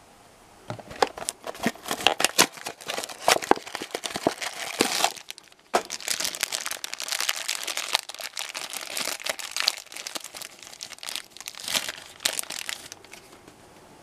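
Black foil blind bag crinkling and crackling as it is opened by hand, in two stretches with a short pause about halfway through.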